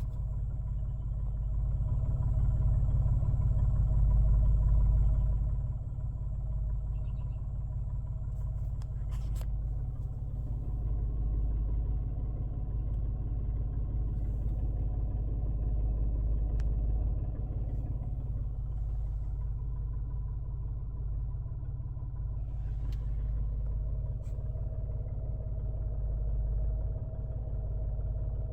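2021 Mitsubishi Mirage's three-cylinder engine idling with a steady low rumble, a little louder for a few seconds near the start. The owner suspects the idle is rough.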